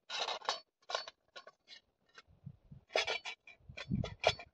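Steel saucepan and cookware being handled: a run of short clinks and scrapes, with dull knocks a couple of seconds in and near the end as the pot is set down on a stone.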